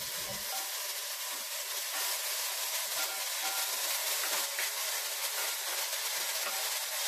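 Steady sizzling hiss from a hot cast-iron pot of frying seasonings as cooked black beans are poured in.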